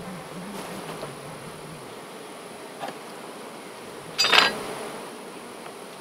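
Honey bees buzzing around an opened hive, one bee's buzz wavering close by in the first couple of seconds. About four seconds in, a brief sharp sound as the hive boxes are handled.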